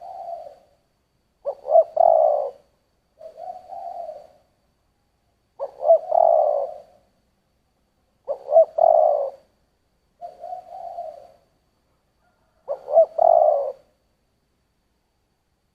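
Spotted dove cooing in the deep 'giọng thổ' voice: four louder coo phrases, each opening with quick short notes before a longer coo, alternating with softer, shorter coos, and about a second of pause between phrases.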